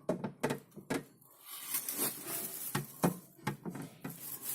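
Scattered knocks and clicks with some rustling from handling a new tabletop fridge and its parts.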